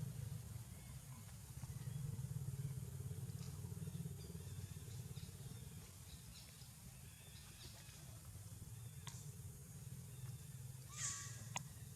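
Faint outdoor background with a steady low engine-like hum. A short sharp sound comes near the end, followed at once by a click.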